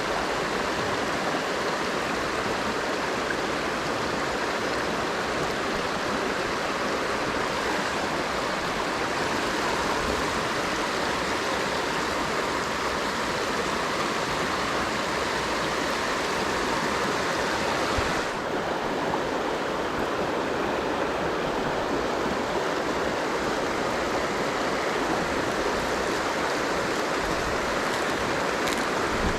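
Mountain stream rushing steadily over rocks. About 18 seconds in, the sound changes suddenly and loses some of its hiss.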